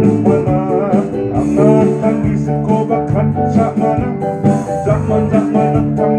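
Live band music amplified through PA speakers, with guitar prominent and a steady beat.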